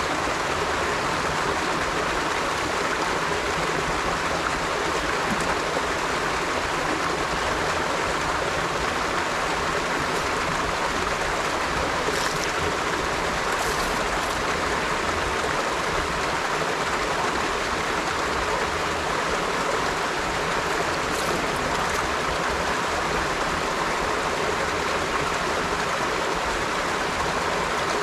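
River water flowing over stones in a steady rushing babble, with a few faint higher splashes about halfway through and again later.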